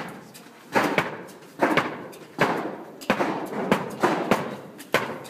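Repeated sharp knocks, each trailing off in a short gritty hiss, coming unevenly about once or twice a second: people digging into and tipping a pile of road salt. The strikes echo in the corrugated-metal hut.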